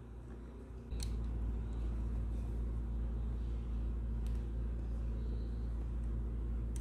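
A steady low rumble comes on about a second in and holds, with a few light clicks of a hex key and 3D-printed plastic parts being handled as a screw is turned.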